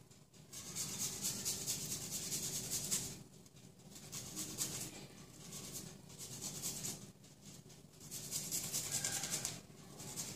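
Garlic cloves rubbed across a flat metal hand grater: rasping grating strokes in four spells with short pauses between them.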